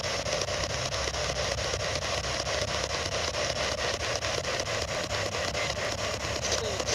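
P-SB11 spirit box (ghost box) sweeping through radio stations: a steady hiss of radio static broken by rapid, even ticks as it jumps from station to station.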